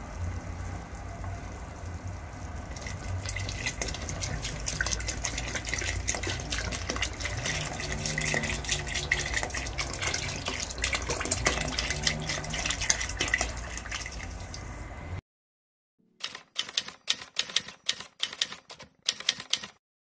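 Liquid poured into a pot of soup: a steady watery rush with many small crackles, lasting about fifteen seconds. After a short silence comes a quick run of about a dozen sharp clicks.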